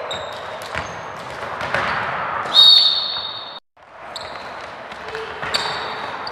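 Sports-hall noise of children exercising: footfalls and thuds on the wooden floor with short high sneaker squeaks, and one loud high squeal lasting about a second, cut off abruptly near the middle.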